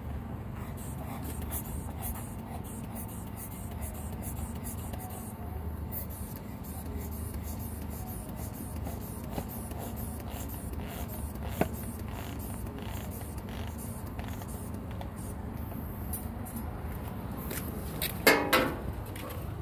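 Faint clicks and creaks of an inflatable air wedge being hand-pumped in a truck's door gap, over a steady low rumble. A brief loud squeak comes near the end.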